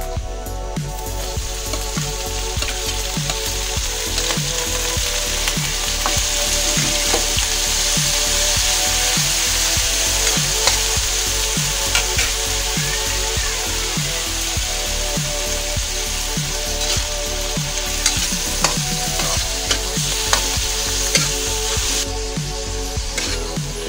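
Ground pork sizzling loudly in hot oil in a stainless steel wok, the frying hiss starting about a second in as the meat goes in. From about the middle on, a metal spatula clicks and scrapes against the wok as the meat is stirred and broken up.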